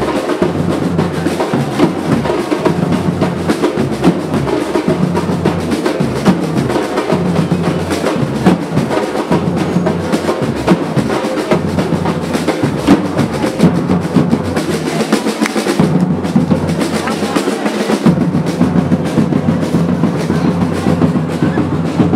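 Loud drumming: snare and bass drums in a dense, continuous rhythm close to a roll, over steady low musical tones.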